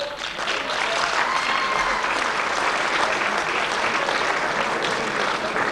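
Audience applauding steadily, starting right after a placing is announced.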